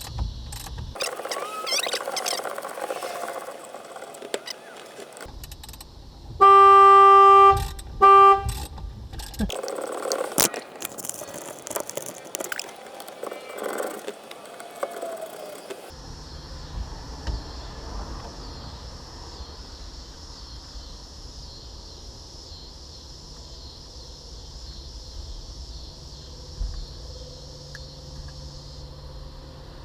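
Nissan Hardbody pickup's horn sounding twice, a blast of about a second and then a short one, set off by pressure on the steering wheel while the airbag's security screws are being worked loose. Around it, clicks and rattles of tools being handled at the wheel.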